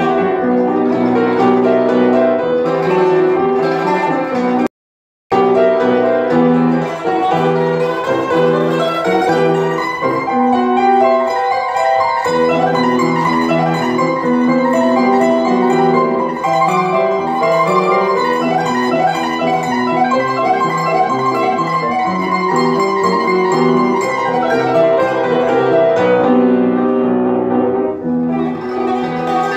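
Armenian kanon (qanun) playing a fast, unbroken run of plucked notes, accompanied by an upright piano. About five seconds in the sound cuts out completely for half a second, then resumes.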